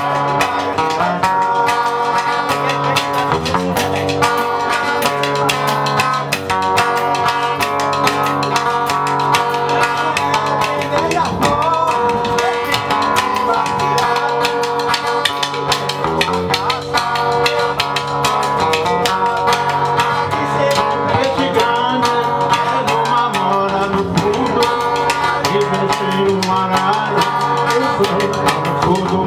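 Samba de roda played live: a plucked string instrument over drums and hand percussion in a steady rhythm, with voices singing.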